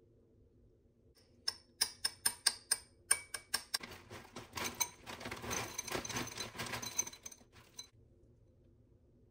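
A metal spoon clinks against a ceramic bowl in a quick run of about ten clicks while spreading yoghurt. Then granola pours from a bag into the bowl with a dense rattle for about four seconds.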